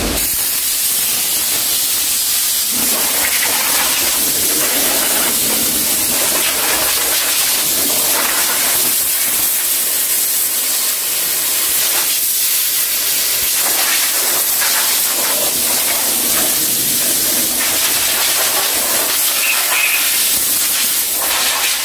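Steam cleaner nozzle hissing steadily as it jets steam over a car's engine bay, with no breaks.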